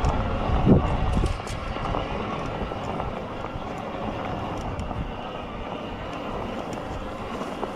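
Bafang M620 Ultra mid-drive e-bike motor running under throttle on a climb: a steady whine over a low rumble, with a brief low thump less than a second in. The owner finds this motor unacceptably loud.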